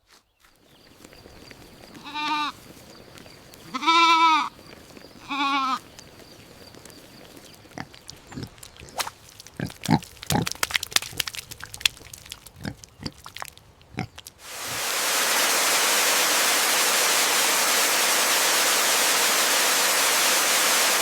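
A goat bleats three times, each call wavering, the middle one the loudest. Then come scattered clicks and knocks, and about two-thirds of the way through a loud, steady static hiss starts and runs on.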